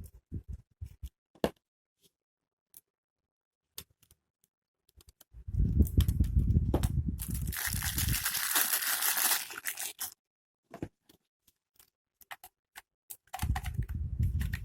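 Packaging being handled and unwrapped: scattered small clicks and bumps, then a couple of seconds of crinkling, tearing noise about halfway through, with low rumbling handling noise around it.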